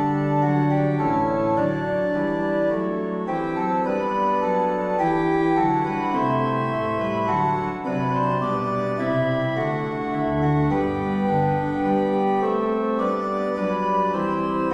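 Organ playing a slow piece of sustained chords, with held bass notes moving underneath.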